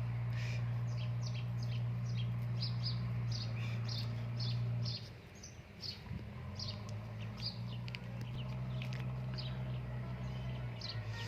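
Small birds chirping in quick, repeated short calls over a steady low hum, the loudest sound, which fades out about five seconds in and comes back a second or two later.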